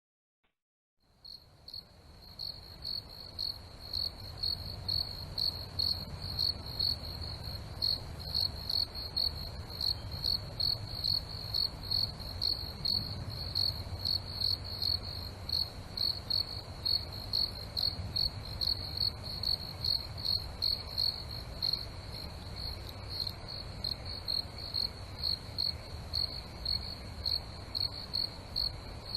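Cricket chirping steadily, about two chirps a second, over a low background rumble; it starts about a second in and swells over the next few seconds.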